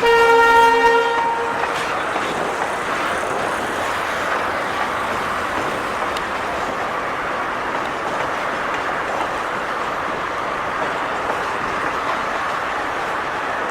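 An Indian Railways train horn sounds one short blast at the start. The steady noise of the train running past on the track follows.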